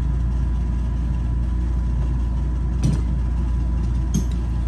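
A steady low mechanical hum, with two brief sharp clicks of cutlery against dishware about three and four seconds in.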